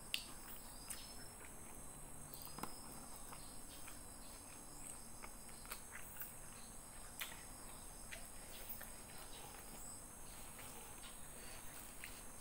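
Quiet close-up eating sounds: soft chewing, mouth clicks and small ticks, scattered through. A faint, steady high-pitched trill runs underneath.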